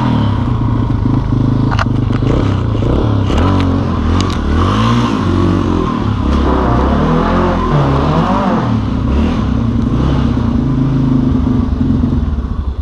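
Motorcycle engine running under load while riding through deep snow, its revs rising and falling, with occasional clatter.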